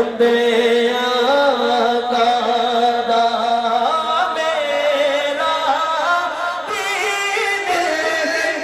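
Men singing a Punjabi naat through microphones and a PA loudspeaker, a melody of long held notes that step up and down, growing brighter about seven seconds in.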